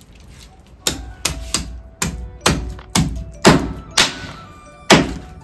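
Heavy knife chopping through chicken pieces on a cutting board: about nine hard chops at uneven spacing, roughly two a second.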